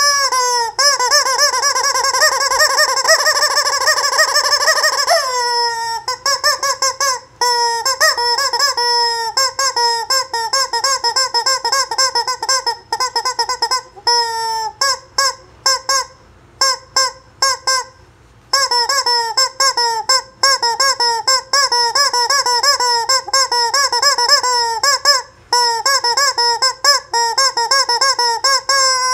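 Rubber chicken squeeze toy squawking as it is squeezed over and over: one long squawk held for about five seconds, then a fast run of short squawks, broken by a few brief pauses around the middle.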